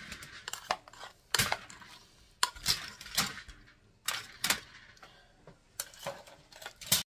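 Spatula knocking and scraping against a cooking pot as broccoli is scraped out of it: a string of about ten sharp clinks and scrapes at uneven intervals.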